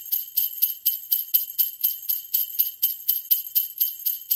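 Sleigh bells shaken in a steady rhythm, about four shakes a second, with no other instrument.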